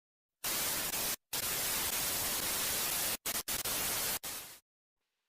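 Loud static hiss, like a white-noise glitch effect, starting about half a second in. It cuts out abruptly for brief moments several times, then fades away near the end.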